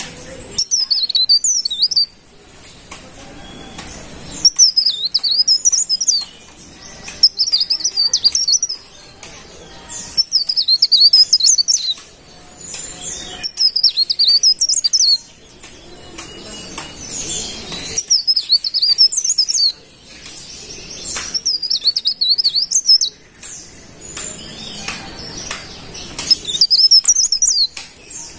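A cikrak daun leaf warbler singing: repeated short, fast, twittering high-pitched phrases, each lasting a second or two, with brief pauses between them.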